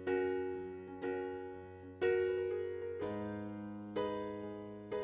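Slow, soft background piano music: a chord struck about once a second and left to ring out and fade.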